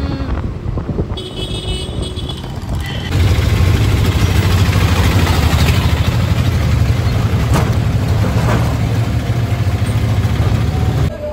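Road vehicle noise while travelling: a loud, steady low rumble of engine and road from about three seconds in, which cuts off suddenly near the end. There are a few brief high tones in the first seconds.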